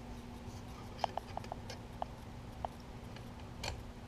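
Light metallic ticks and short pings, then a sharper click near the end, as a hand-operated sheet-metal hole punch is picked up and handled, over a faint steady hum.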